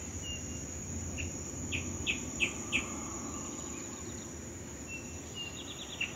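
Outdoor insect chorus: a steady high-pitched trill, with a quick run of short, sharp chirps about three a second around two seconds in and a few single chirps.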